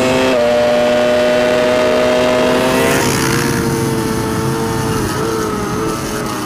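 Onboard sound of a racing superbike engine held at high revs under throttle, with wind rush. A Ducati Panigale V4 R's V4 runs first. About three seconds in, the sound switches to a Kawasaki ZX-10RR's inline-four, at a nearly steady pitch that wavers slightly near the end.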